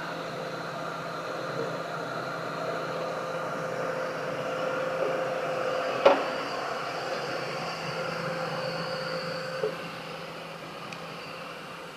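Small electric motors of a remote-control backhoe loader whining steadily, with a sharp click about halfway through and a lighter one near ten seconds.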